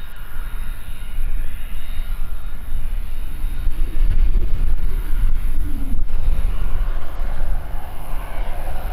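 British Aerospace BAe 125-800 business jet taxiing, its twin Garrett TFE731 turbofans running with a steady rumble and whine. The roar grows stronger over the last couple of seconds.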